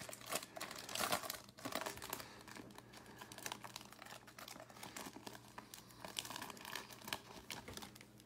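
Foil wrapper of a Topps baseball card pack being torn open and crinkled by hand, a dense crackling that is loudest in the first two seconds and goes on more softly after.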